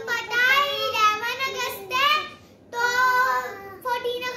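Two young girls singing together, with a short pause about two and a half seconds in.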